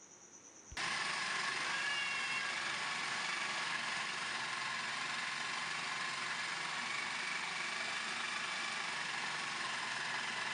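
Electric food chopper switched on about a second in and running steadily, its blade mincing raw boneless chicken with garlic and spices.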